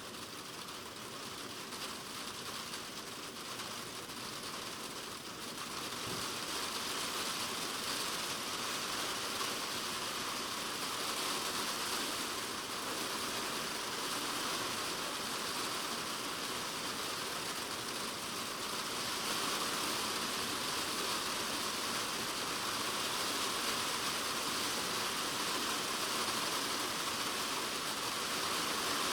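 Typhoon rain drumming on a polycarbonate shed roof, heard from inside the shed as a dense, steady hiss of drops. It grows gradually heavier, picking up about six seconds in and again around twenty seconds.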